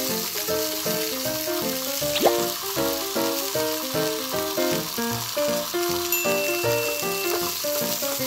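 Sizzling frying sound from a steaming toy griddle, mixed with background music of short, evenly paced notes. A single sharp tap sounds about two seconds in.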